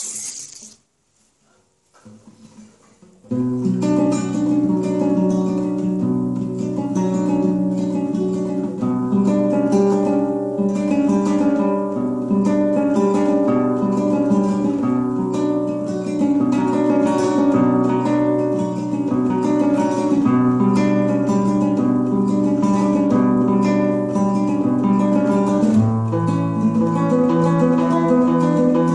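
Solo acoustic nylon-string guitar improvising, with plucked notes and chords that begin about three seconds in, after the intro music fades out and a short quiet gap.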